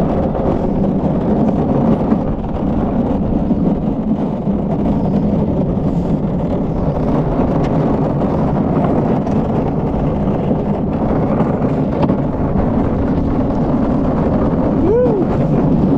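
Wheels of a gravity-powered downhill kart rolling on a concrete track, a loud, steady rolling noise. A short high squeak rises and falls near the end.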